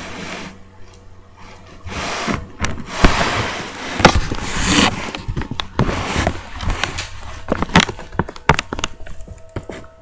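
Close handling noise at the microphone: rustling and rubbing for a few seconds, then a quick run of sharp knocks and clicks.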